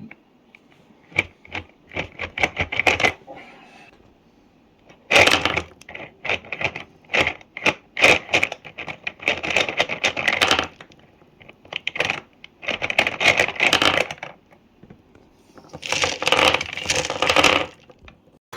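Toy gumball machines being played: four runs of rapid, sharp clicking and rattling of gumballs and the plastic mechanism, with short pauses between.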